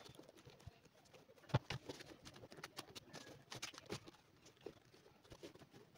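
Faint scattered taps and knocks of a resoled leather shoe being turned over and handled on a workbench, the sharpest knock about a second and a half in and a few more close together near four seconds.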